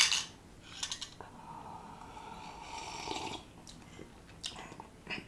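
A person blowing on a cup of hot, steaming coffee to cool it: one soft, breathy blow lasting about two seconds, with a few faint clicks before and after it.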